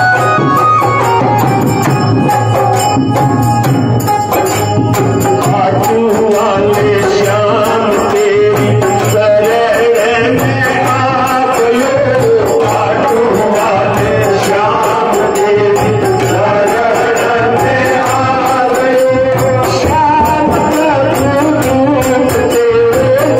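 Indian devotional folk music: a voice singing a wavering melody over a steady, dense beat of hand percussion with jingling metal percussion and a repeated low drum thud.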